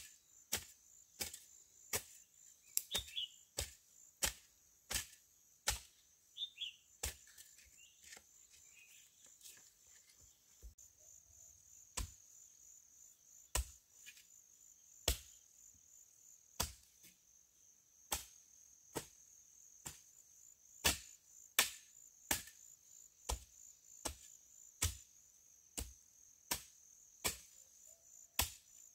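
Repeated chopping blows of a hand tool, roughly one to two a second with a short pause about ten seconds in, over the steady shrill of insects.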